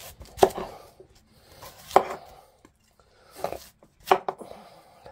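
Kitchen knife cutting into a celeriac (celery root) to trim off the dirty root end, in about five separate chopping strokes, the last two in quick succession.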